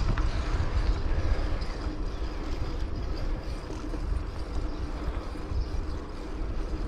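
Steady low noise from riding a bicycle along an asphalt street: wind on the microphone together with the tyres rolling on the pavement.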